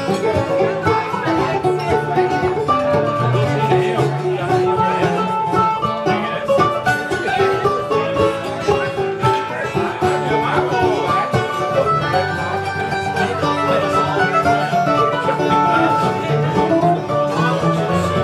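A banjo, an acoustic guitar and a mandolin playing a bluegrass instrumental together, with quick picked notes and no singing.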